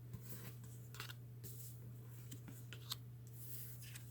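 Faint rustling and a few light clicks of tarot cards being handled, over a steady low hum.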